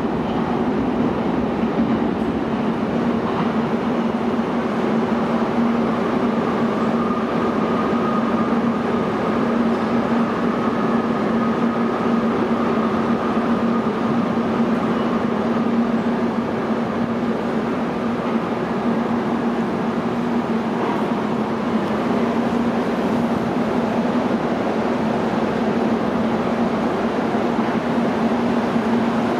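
Breda A650 subway train pulling out of an underground station and running off into the tunnel, with a faint higher whine partway through. A steady low drone carries on at the same level after the train has gone.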